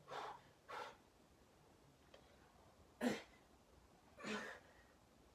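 A man's short, forceful breaths while doing push-ups: two puffs in quick succession at the start, then two more after a pause.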